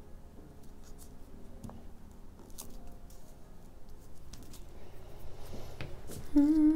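Glue stick rubbing over paper and hands pressing paper pieces flat, with faint light ticks and rustles. Near the end a person starts humming a wavering tune, the loudest sound.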